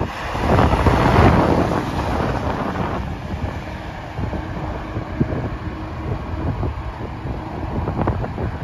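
Fire ladder truck driving past on a highway: engine and tyre noise swell, loudest about a second in, then fade into steadier road noise as a truck heads away. Wind buffets the microphone throughout.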